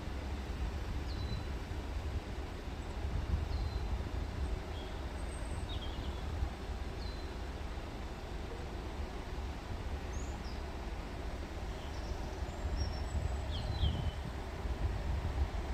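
Outdoor ambience: small birds chirping now and then over a steady low rumble.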